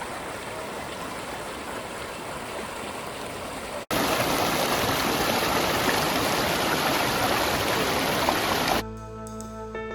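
Rushing water of a river and waterfall, a steady roar-like noise. A cut about four seconds in brings a louder stretch of the same rushing water, and near the end it gives way to soft background music with held notes.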